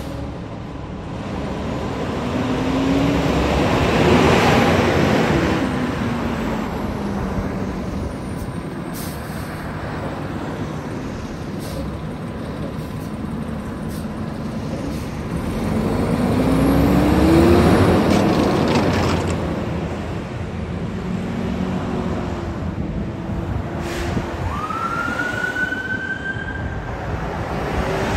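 Fire engine's diesel engine getting louder twice as it accelerates, its pitch rising. Near the end its siren starts to wail, sweeping up in pitch twice.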